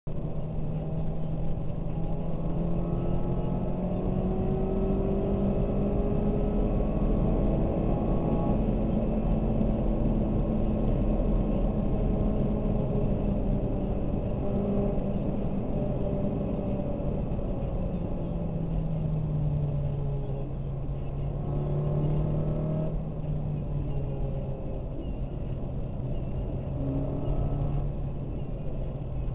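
Car engine drone and road noise heard inside the cabin while driving at steady speed; the engine note drops for a couple of seconds past the middle and then holds steady.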